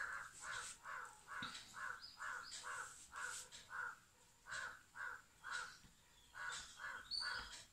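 A crow cawing over and over in a long series of short caws, about two to three a second, with a couple of brief pauses.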